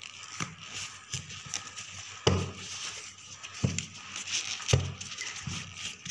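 Large taro (arbi) leaves rustling and crinkling as they are folded over by hand, with three dull thumps as the bundle is handled.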